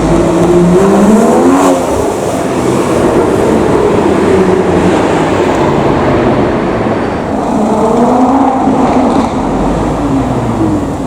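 Supercar engine accelerating hard, its pitch climbing about a second in and again around eight seconds in.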